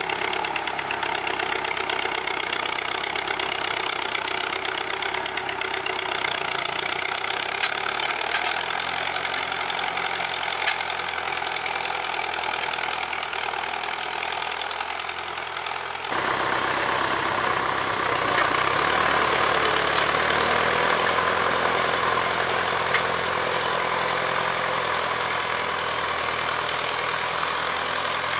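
Farm tractor engine running steadily under load while pulling a mounted plough through the soil. About halfway through the engine becomes louder and brighter.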